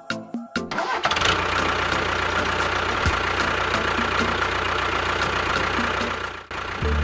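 A motor running steadily with a constant low hum; it cuts in just under a second in and stops abruptly near the end.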